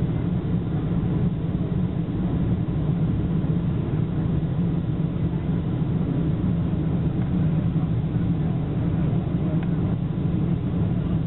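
Steady low rumble of a Boeing 747-400's cabin noise, its engines and the airframe heard from inside the passenger cabin, with a faint steady whine above it.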